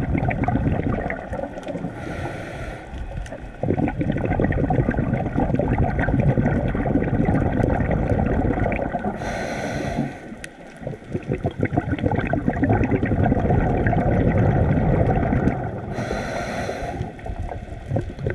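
A diver breathing underwater through a regulator. About every seven seconds there is a short airy hiss of a breath in, and between them a long bubbling rumble of exhaled air.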